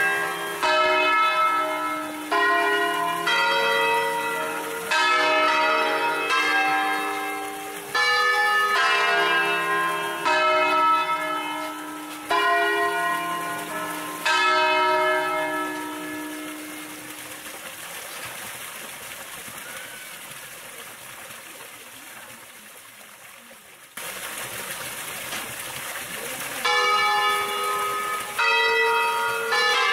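A five-bell peal of bronze church bells in E-flat (Pruneri of Grosio, 1892 and 1900) swung full circle on wheels in the Ambrosian manner, striking one after another in the traditional scale sequences. The strikes stop about halfway, the hum of the bells dies away for several seconds, and the sequence starts again near the end.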